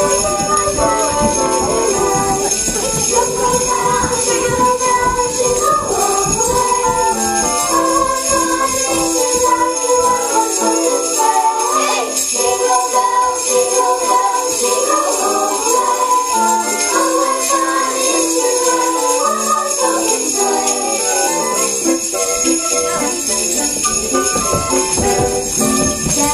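Sleigh bells jingling continuously along with a tune of distinct stepping notes.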